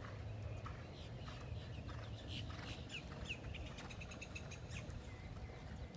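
Birds calling faintly in the background: a few short chirps, then a quick trill about four seconds in. A low, steady background rumble runs underneath.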